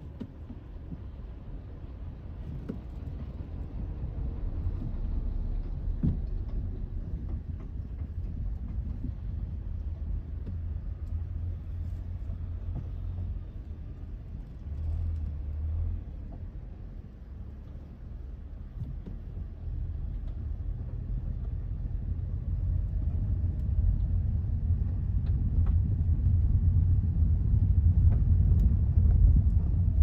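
Hyundai Elantra CN7 driving on a rough road: a steady low tyre and road rumble that grows louder over the last third, with a few faint knocks.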